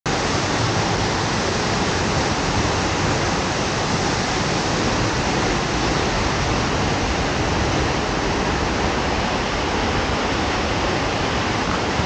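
Waterfall and its creek rushing: a loud, steady, even wash of falling water.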